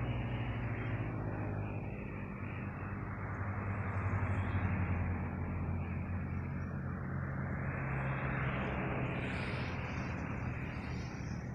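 A steady low engine hum under a rushing noise, growing slightly louder twice, about five and eight seconds in.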